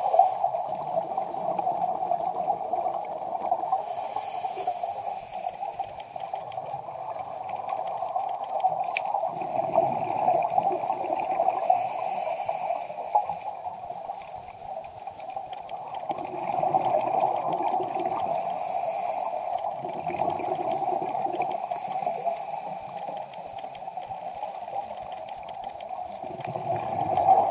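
Underwater recording with a steady rush, broken every several seconds by the gurgling of a scuba diver's exhaled bubbles.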